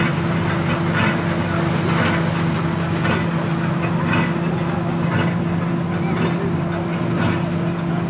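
Volvo BM S830 combine harvester running while harvesting barley: a steady engine and drive hum, with a regular hissing beat about once a second over it.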